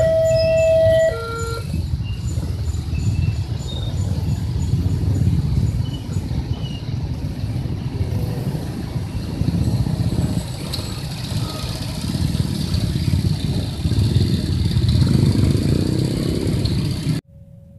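Railway level-crossing warning alarm alternating between two tones, stopping about a second and a half in. After it comes a steady rumble of passing vehicles, which cuts off abruptly near the end.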